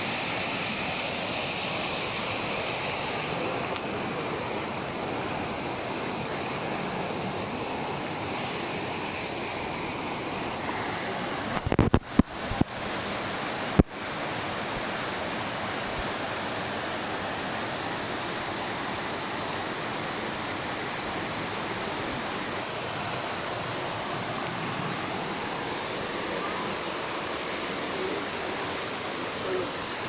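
Steady rush of cascading water from a small forest waterfall. A few sharp knocks with brief cut-outs come about twelve seconds in, and another about two seconds later.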